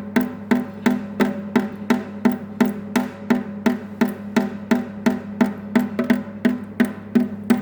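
Water drops plopping in a steady, even rhythm, a little under three a second, each with a short hollow pitched ring, over a faint low hum.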